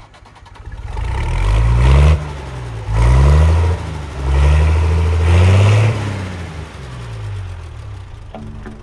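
A large engine revving several times, its pitch climbing with each rev and dropping back between them. Guitar music comes in near the end.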